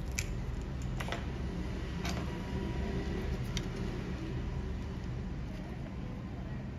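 A steady low hum with four short, sharp clicks spread over the first few seconds.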